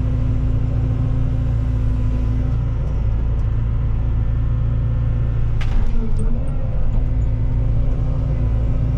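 Cat 313 excavator's diesel engine running steadily under the operator, heard from the cab, with a sharp crack or knock a little past halfway as the bucket works among the felled trees and brush.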